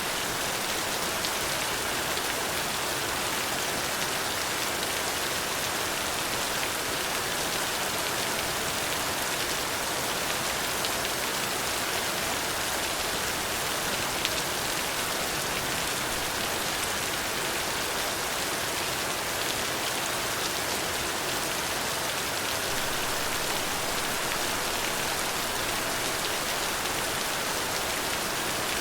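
Steady rain falling on a surface, an even hiss of rainfall with scattered individual drops ticking through it.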